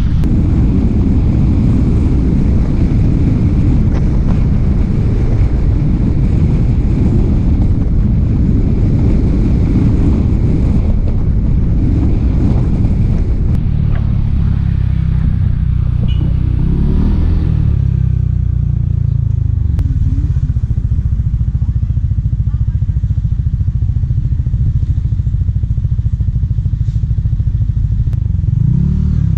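Yamaha motor scooter's engine running on the road, with rushing wind noise while riding at speed for the first half. After about the middle it eases to a lower, uneven engine note as the scooter slows and rolls into parking, with a short rev near the end.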